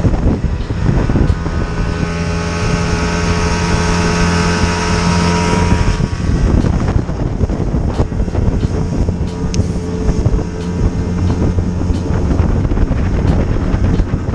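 A 1996 Johnson 40 two-stroke outboard motor running steadily on a test run after its stator was replaced, with wind buffeting the microphone. The higher part of its engine note fades about six seconds in while the low drone carries on.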